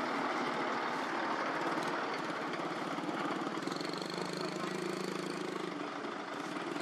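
Heavy diesel engines of a Hyundai dump truck and an excavator running steadily, with a faint high whine for a second or so in the middle.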